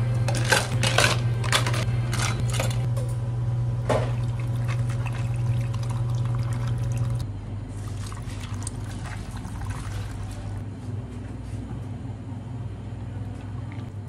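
Ice cubes clattering into clear plastic cups, then water poured from a pitcher over the ice. A steady low machine hum runs underneath and drops in level about halfway through.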